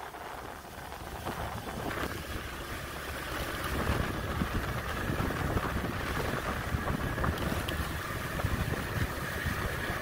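Wind buffeting the microphone in an uneven low rumble that grows a little louder over the first few seconds, with a faint steady high hum underneath from about two seconds in.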